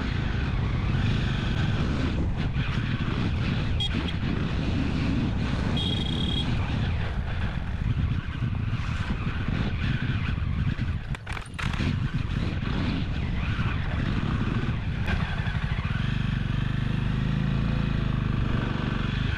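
Motorcycle engine running and road noise as the bike is ridden along a road, with a brief lull about eleven seconds in.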